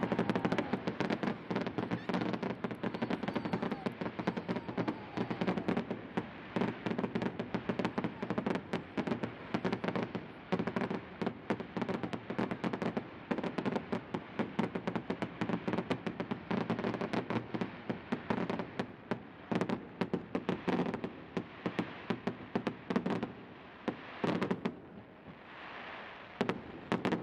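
Aerial fireworks going off: a dense, continuous string of sharp bangs and crackles, easing off briefly about three-quarters of the way through before more pops near the end.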